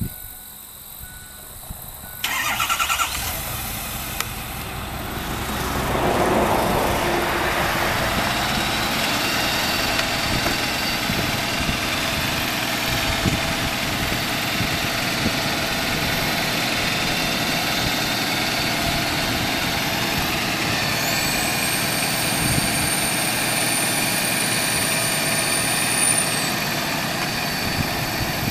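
Truck engine cranked by the starter and catching about two seconds in, then running steadily. A few seconds later it grows louder and holds there while the Altec hydraulic boom is worked. Near the end a thin, high whine sweeps up, holds for about five seconds and drops away.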